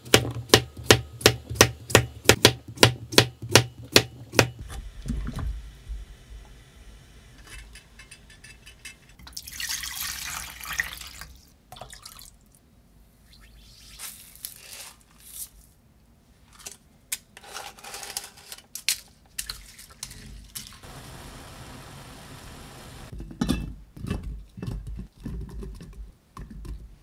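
Kitchen knife chopping cucumber on a wooden chopping board, steady strokes at about three a second for the first four seconds or so. Later comes a hissing wash of liquid being poured, about ten seconds in, then scattered light clinks and knocks of spoon, pot and glass jar.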